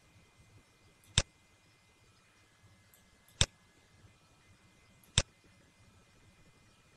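A computer mouse clicking three times, about two seconds apart, over a faint steady hiss.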